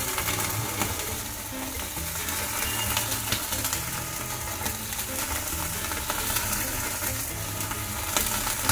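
Marinated pomfret fish sizzling on a hot tawa (flat griddle), a steady hiss with scattered crackles and clicks.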